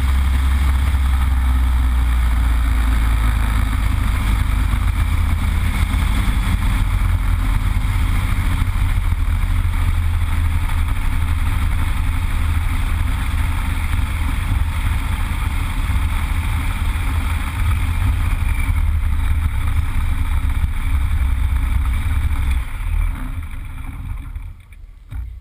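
Yak-52's nine-cylinder Vedeneyev M-14P radial engine idling steadily on the ground, heard from the cockpit. Near the end it is shut down and runs down to a stop.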